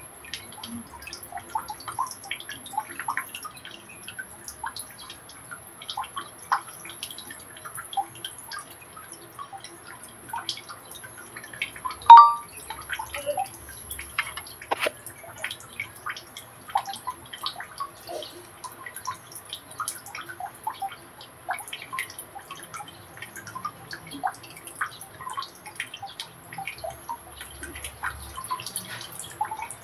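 Irregular dripping and small ticks, with one loud sharp clink about twelve seconds in.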